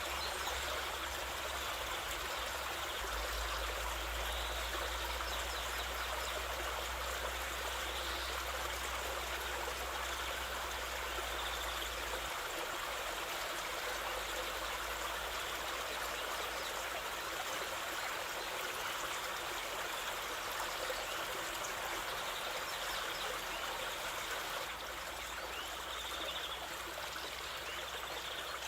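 Waterfall running: a steady, continuous rush of falling water.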